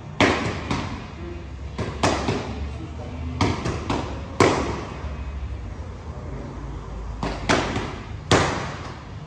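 Boxing gloves striking focus mitts: sharp slaps in quick combinations of two or three punches, each ringing briefly in an echoing room. A gap of about three seconds falls near the middle before two last strikes.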